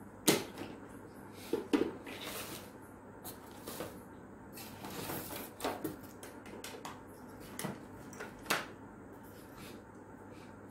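Irregular clicks, knocks and rustling of hard objects being handled and set down on a workbench. The sharpest knocks come just after the start and near the end.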